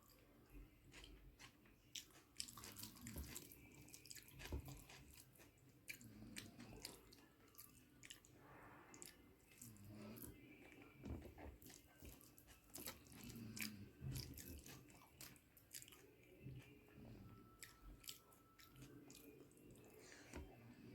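Faint, close chewing of a mouthful of rice with prawn dal and mashed potato-eggplant, with many small mouth clicks scattered throughout.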